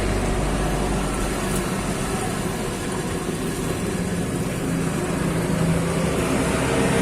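Worn, dry wheel bearing on a raised Nissan Frontier wheel giving a steady droning hum as the wheel is kept spinning. The hum is the sign of a bearing run out of grease and close to seizing. A deeper low rumble under it drops away about two seconds in.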